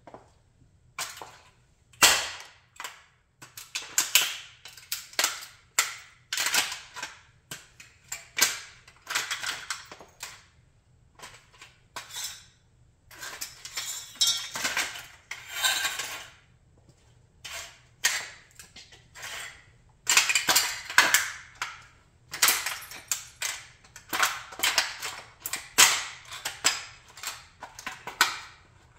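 A model Chrysler 300B car being crushed underfoot: a long run of sharp cracks, snaps and crunches as its body and parts give way, coming in irregular bursts, with the loudest crack about two seconds in and a dense run of cracking near the end.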